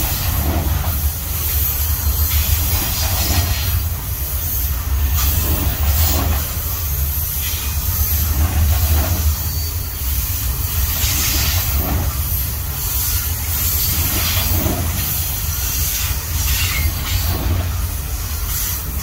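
Loaded coal hopper wagons of an Aurizon coal train rolling past on a curve: a steady low rumble of steel wheels on rail with a high hiss from the wheels. A faint beat comes about every second and a half as each bogie passes.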